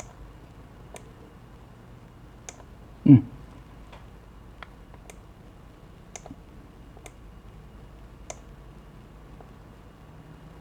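Computer mouse clicking at irregular intervals, about one click a second, while shapes are edited in PowerPoint. One louder, brief low sound with a falling pitch comes about three seconds in.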